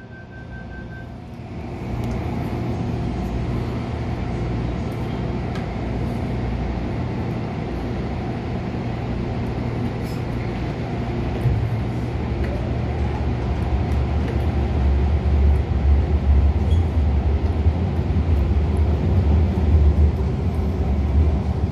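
Inside an MTR Tung Chung Line A-Train electric multiple unit: a steady hum while it stands at the platform, then a knock about eleven seconds in as it starts off, followed by a low rumble that grows louder as the train accelerates. The set is running with one motor car's traction motor out of action, five motor cars to three trailers.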